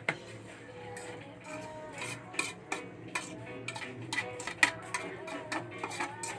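A utensil clicking and scraping against a bowl as a wet mixture of mashed sardines, egg and chopped ampalaya leaves is stirred, with irregular clicks about twice a second.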